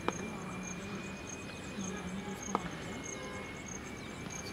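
Quiet background with an insect chirping in short, even, high pulses about three times a second over a faint steady high tone. Two sharp clicks, one just after the start and one about halfway through.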